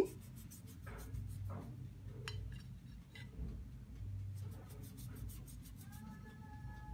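Faint scraping of a kitchen knife sawing through a baked pound cake on a plate, with scattered light clicks. Near the end a held, pitched call starts up.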